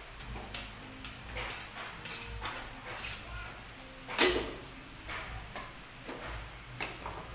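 A spatula scraping and knocking in a wok as fried noodles are stirred and tossed: a run of short, irregular scrapes and clacks, with the loudest knock about four seconds in.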